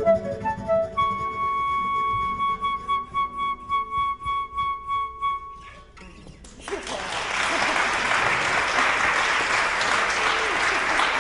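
Flute ends a Brazilian jazz tune on one long held note over the plucked nylon-string guitar, which fades out; about six and a half seconds in, audience applause starts and carries on.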